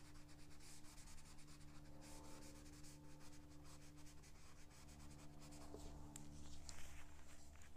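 Kleenex tissue rubbed over graphite shading on drawing paper to blend it: faint, quick, dry scuffing strokes.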